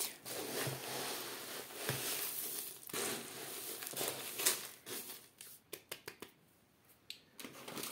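Hands stirring a dry mix of grains, seeds and pellets in a plastic tub: a continuous rustling and rattling of the grains for about five seconds, thinning out into a few light clicks near the end.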